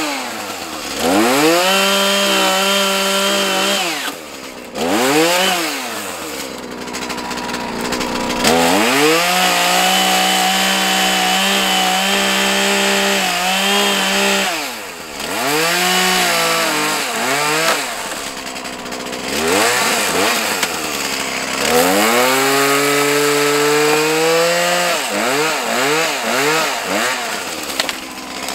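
Husqvarna 445 two-stroke chainsaw cutting through tree limbs, revved up again and again: held at full throttle for a few seconds at a time through the cuts and dropping back toward idle in between.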